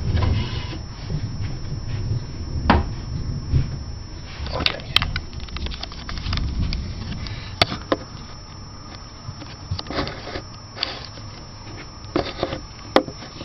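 Handling noise as a camera is set down on a table: scattered sharp knocks and clicks with wooden creaking and squeaks, over a low rumble in the first couple of seconds.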